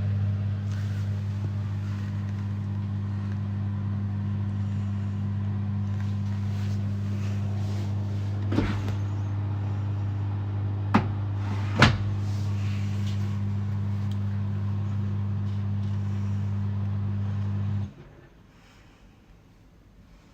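Washing machine starting a quick-wash cycle: a steady, low mains-type hum that cuts off suddenly near the end, with three sharp clicks in the middle.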